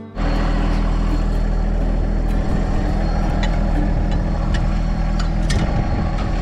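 A heavy vehicle engine idling steadily with a deep, even hum, with a few sharp clicks over it about two to five seconds in.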